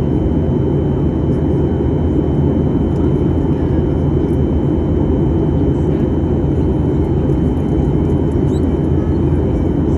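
Steady cabin noise in an Airbus A320neo seated near the wing: an even rush of air with the low hum of its CFM LEAP-1A engines and a faint high steady whine on top.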